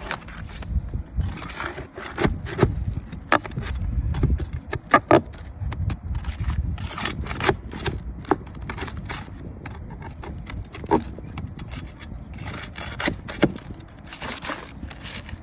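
Hard objects being handled: irregular clicks, taps and knocks with scraping and rubbing in between.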